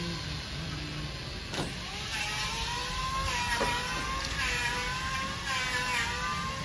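A motor's whine that starts after a click about one and a half seconds in, rises briefly in pitch, then holds steady with small wobbles.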